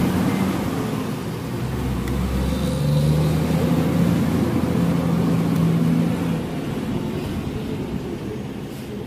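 A motor vehicle engine running with a low drone that swells for a few seconds in the middle and then eases off.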